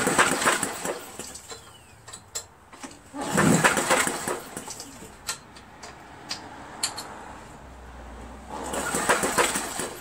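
Recoil starter of a Briggs & Stratton 11 HP engine pulled three times, each pull a rush of rope and spinning flywheel about a second long, with clicks between. The engine does not fire: the magneto is giving no spark.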